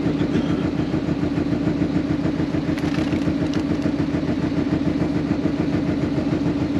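Fishing boat's engine running steadily at low speed, a constant droning hum over a pulsing low rumble.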